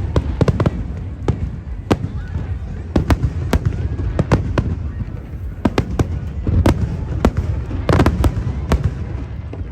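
Fireworks going off in quick, irregular succession: many sharp bangs, some in tight clusters, over a steady low rumble.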